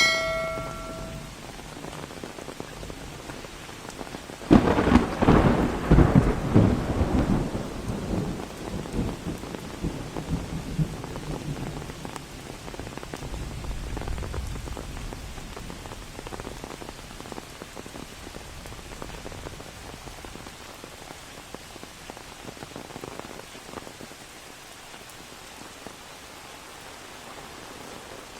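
Steady rain falling, with a loud thunderclap about four seconds in that crackles and rumbles away over several seconds.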